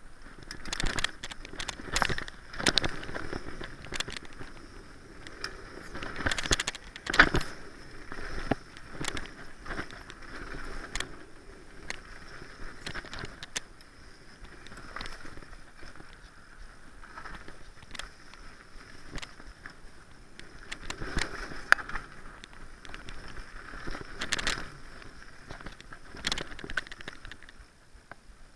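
Mountain bike descending a dirt trail: the tyres rolling over dirt, with irregular knocks and rattles from the bike over bumps and roots.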